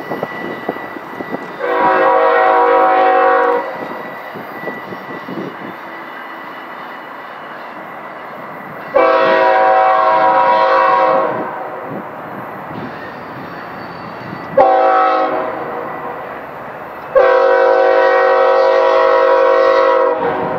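Diesel locomotive multi-chime air horn sounding four blasts: long, long, short, long. This is the standard grade-crossing signal. A low rumble of the train runs between the blasts.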